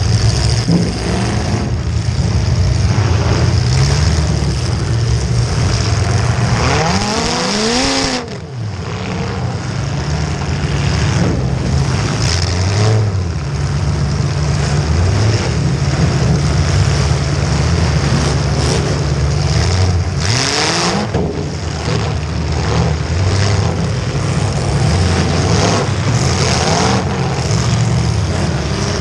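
Full-size demolition derby car's engine running hard and revving up and down, heard close up from the hood, with other derby cars' engines around it. The sound dips briefly about eight seconds in.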